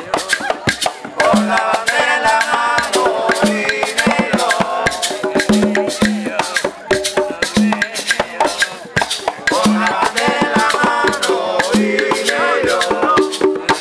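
Cuban rumba (guaguancó) played live: conga drums sounding repeated open tones under a shaken maraca and a fast stream of sharp wooden clicks, with voices singing the melody.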